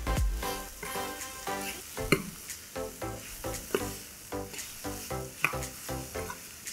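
Stir-fried chicken in dry chilli sauce sizzling in a metal frying pan as it is stirred, with a few clinks and scrapes of the spoon against the pan. Background music plays a repeating pattern of notes.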